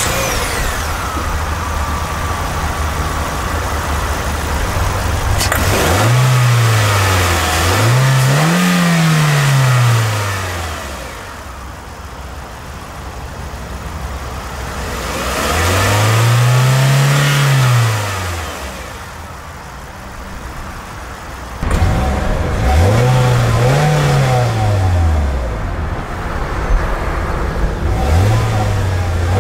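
Lifan X60's 1.8-litre four-cylinder petrol engine idling steadily, then revved about six times. The revs come as two quick blips in a row, a single one, another pair and one more near the end, each rising in pitch and falling back to idle.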